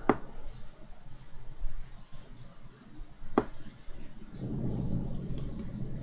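Two sharp computer mouse clicks about three seconds apart, then a low, muffled rumble from about four seconds in.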